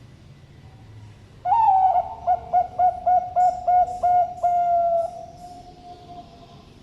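Zebra dove (perkutut) cooing one full phrase: an opening note, a quick run of about seven short coos, and a long drawn-out final coo.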